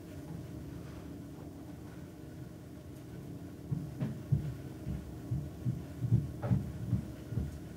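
A run of soft, low gulps from a person's throat, irregular at two or three a second. They start about halfway through over a steady low hum, with a small click among them. They fit a belcher swallowing air to build up a burp.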